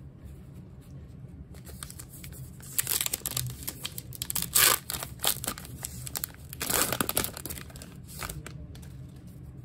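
Plastic wrapper of a Topps Archives baseball card pack being torn open and crinkled: a run of crackling rustles, loudest about halfway through and again near the end.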